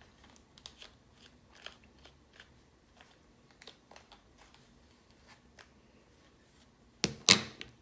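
A comb drawn through a section of hair coated with twisting cream, giving scattered short scratchy crackles, with a louder scrape about seven seconds in.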